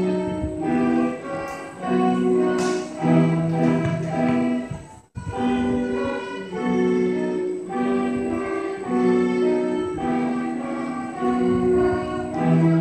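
Student string orchestra of violins and cellos playing a piece in sustained, phrased notes, with a momentary dropout about five seconds in.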